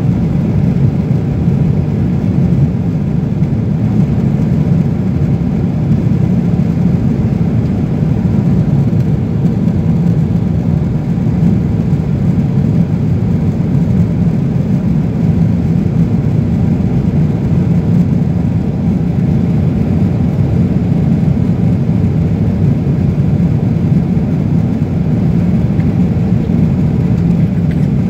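Steady low drone of a jet airliner's cabin in flight: engine and airflow noise heard from a window seat, unchanging throughout.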